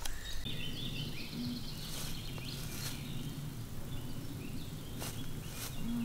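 Woodland ambience: small birds chirping over a steady low background noise, with a few soft clicks.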